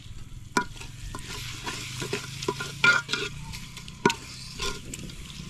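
Steel ladle stirring and mashing brinjal bharta that sizzles in an aluminium pot, scraping, with a few sharp clinks of the ladle against the pot, the loudest about three and four seconds in.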